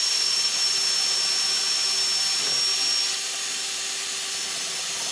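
Power drill running steadily as a flat (spade) wood bit bores a hole in wood, with a high whine over the motor hum. About three seconds in the whine stops and the sound gets slightly quieter.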